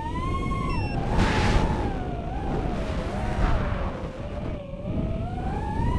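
FPV racing quad's four brushless motors (Racerstar BR2306S 2700KV) spinning three-blade DAL 5045 props, heard through the onboard camera's microphone: a whine that rises near the start, dips and wavers with the throttle, then climbs again near the end. Two short bursts of rushing air, one about a second in and one near the end.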